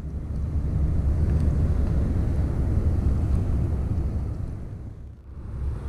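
Wind buffeting the microphone: a low rumble that swells and eases, falling away briefly near the end.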